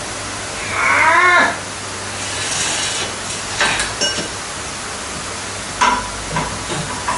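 A steady background hiss, with a short wavering, voice-like strained sound about a second in and a few sharp knocks later, while an engine hoist is worked.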